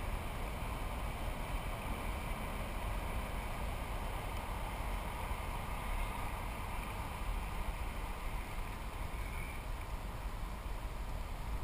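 Steady wind rumble on the microphone, an even low hiss with no distinct events.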